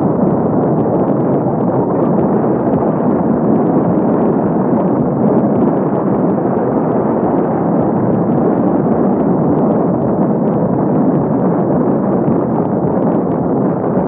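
Wind buffeting the camera microphone on an electric bike ridden at around 70–77 km/h: a loud, steady rush of noise.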